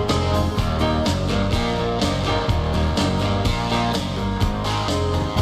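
Rock backing music with a steady beat and guitar: the karaoke instrumental playing on between the sung refrains, with no singing.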